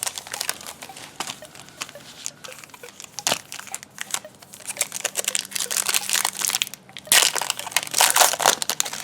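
Topps Chrome card pack wrappers crinkling and tearing as they are worked open by hand, in several bursts of crackling, the loudest near the end.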